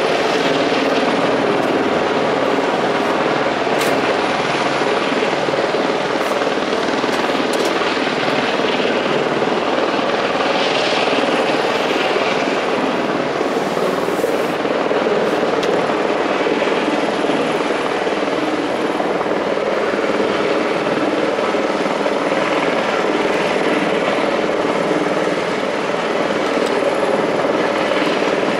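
Helicopter flying past, its rotor blades beating rapidly and its engine running steadily at an even, loud level.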